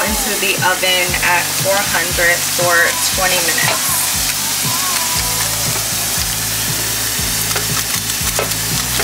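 Food sizzling steadily in a frying pan, a dense continuous hiss, under background music with a bass line and a regular beat; the melody fades after about three seconds.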